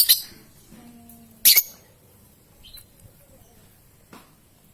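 Lovebird calling: a rapid trill of shrill chirps breaks off right at the start, followed about a second and a half in by one loud, sharp, high-pitched call and a few faint short chirps.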